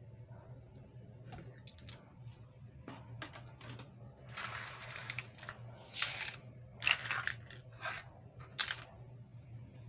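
Plastic toy packaging crinkling and rustling in a string of short bursts, loudest in the second half, over a low steady hum.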